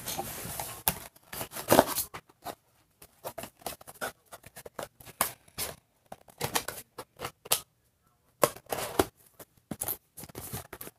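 Handling noise close to the microphone: irregular clicks, taps and rustles as a phone and its cardboard box are handled.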